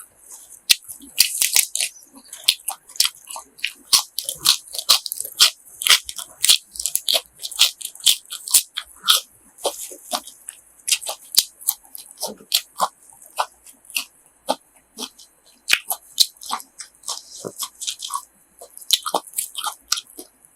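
Close-up chewing of crunchy grilled pork offal: many sharp, crisp crunches, about two to three a second, over a faint steady high hiss.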